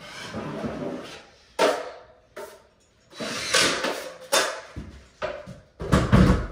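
Steel drywall taping knife scraping joint compound along drywall seams, in repeated swishing strokes with sharp clicks of the knife. A dull thump about six seconds in is the loudest sound.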